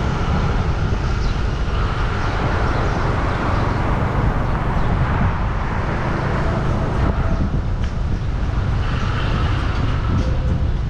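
Steady road traffic noise: a continuous rumble of passing vehicles and engines.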